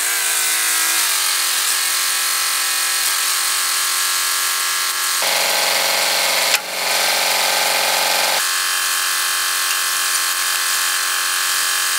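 Front-loader tractor's engine running steadily with a high mechanical whine. About five seconds in, its tone shifts lower for roughly three seconds, then returns.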